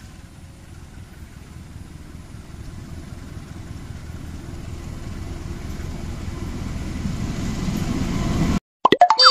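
Diesel locomotive approaching with its train, its low engine rumble growing steadily louder as it nears. Near the end the sound cuts off suddenly and a short, loud edited-in sound effect with sweeping pitch begins.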